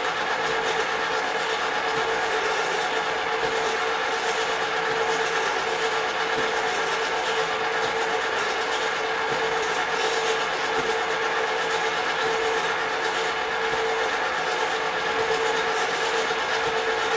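Two small kettle popcorn machines and the 12-volt power inverter powering them, running steadily while the kettles heat up: an even mechanical running sound with a constant mid-pitched tone.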